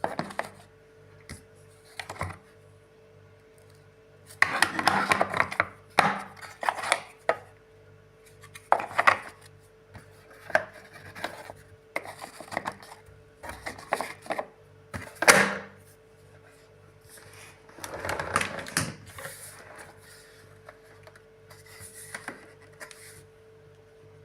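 Plastic clicks, knocks and rattling from the vacuum cleaner's lid and accessory nozzles being handled, in irregular bursts with pauses between. A faint steady hum runs underneath.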